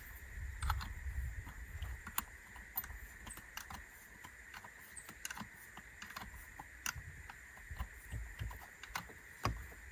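Irregular light metallic clicks and taps as cables and terminal clamps are handled and fitted onto a car battery's terminals.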